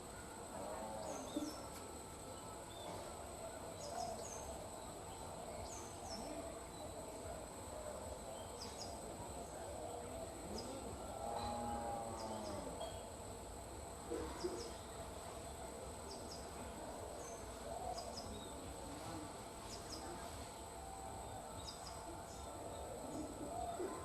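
Birds calling: short high chirps every second or two and a few lower, curving calls, over a steady high-pitched insect buzz.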